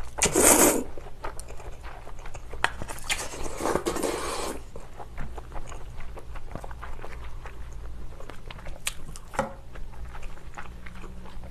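Cold naengmyeon noodles slurped from the bowl, a loud rush in the first second, followed by close-up chewing with small wet mouth clicks and a second, softer rush of sound a few seconds in.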